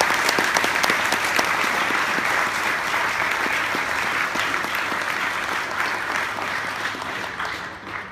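Audience applauding: a steady, dense clapping that fades away near the end.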